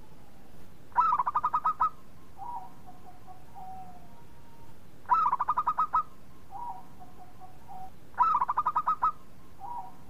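Zebra dove (local perkutut) singing: three song phrases about three and a half seconds apart, each a quick loud run of about eight short coos followed by a few softer, lower coos.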